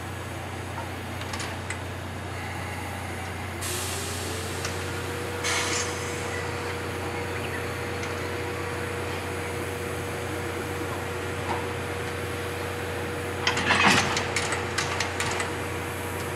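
C58 steam locomotive backing slowly onto its passenger coaches, with a hiss of steam starting a few seconds in and a steady tone over a low hum. Near the end comes a loud burst of clanking and knocking as it buffers up and couples to the coaches.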